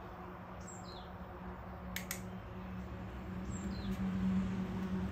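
Two short, falling bird chirps over a steady low hum that grows louder toward the end, with a sharp double click about two seconds in.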